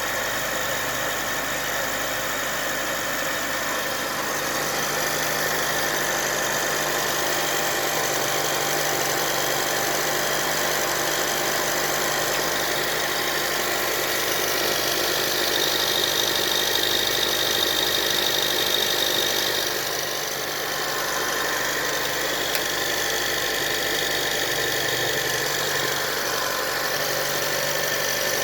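Mitsubishi Pajero Mini turbo's 660 cc three-cylinder engine running steadily with a high squealing noise over it, a little louder about halfway through. The owner hears this squeal when the engine is started cold, and it fades once the engine has run for a while.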